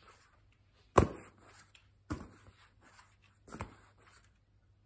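A soccer ball handled by both hands right at the microphone: three sharp knocks, the first the loudest, each followed by a short rubbing rustle.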